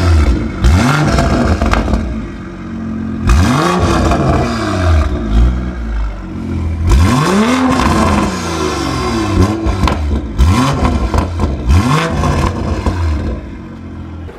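BMW M340i's turbocharged 3.0-litre inline-six being revved in about ten quick blips through a newly fitted Active Autowerke exhaust. Each rev rises and falls in pitch. The tone is round rather than raspy.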